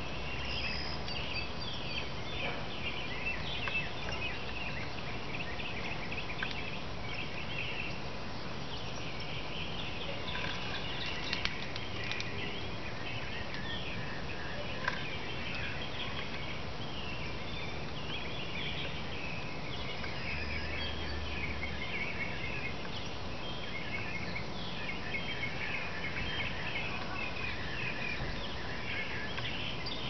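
Outdoor bird chorus: many small birds chirping and trilling continuously over a steady background hiss, with a couple of faint clicks.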